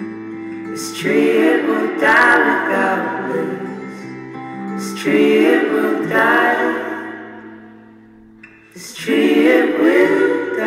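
Music: a song with singing over steady held chords. Sung phrases come in about a second in, about five seconds in and near nine seconds in, and the music drops away briefly just before the last phrase.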